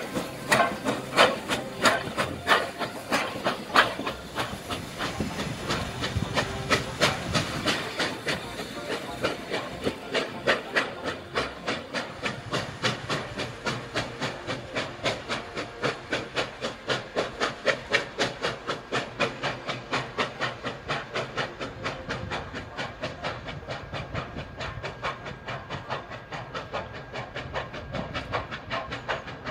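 Soviet L-class 2-10-0 steam locomotive L-2198 chuffing as it pulls a passenger train away: sharp exhaust beats that come quicker as it picks up speed. The beats grow duller and fainter as the train moves off.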